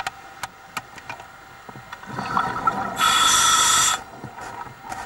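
A scuba diver's breathing heard through the underwater camera housing: a bubbling rumble of exhaled air builds about two seconds in, then the regulator hisses loudly and steadily for about a second on the inhale. Scattered sharp clicks run throughout.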